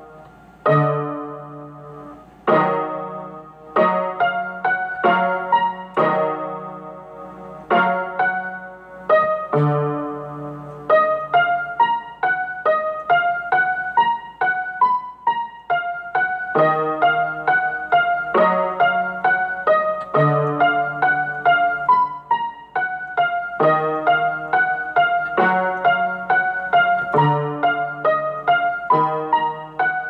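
Solo piano music: chords and melody notes struck one after another and left to ring and fade, over low bass notes.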